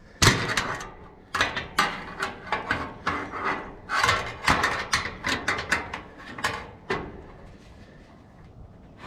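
Metal building parts being handled and set in place: a quick, irregular run of clicks, knocks and scrapes that stops about seven seconds in.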